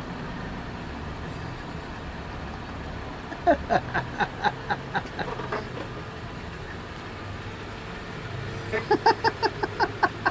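A vehicle engine running low and steady as a Jeep Wrangler pulls up alongside. Over it come two runs of quick, pitched chirps, about five a second, one a few seconds in and one near the end.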